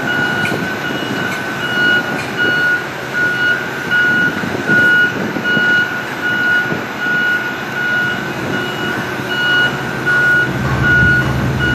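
Heavy-machinery warning beeper, a reversing-type motion alarm, sounding a single high tone about twice a second over a low engine rumble that grows near the end.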